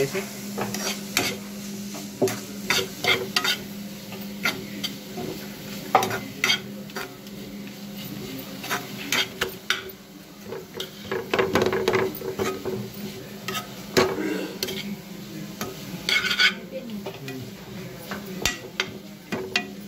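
A steel spoon stirring and scraping through frying onions and green peppers in a non-stick kadai, with irregular clinks against the pan over a light sizzle. A steady low hum runs underneath.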